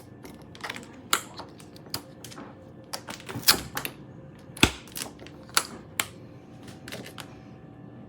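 Plastic keyed adhesive cabinet lock being worked by hand: irregular sharp clicks and knocks as the key is turned and the lock is handled, about a dozen, louder a little after a second in and again around the middle.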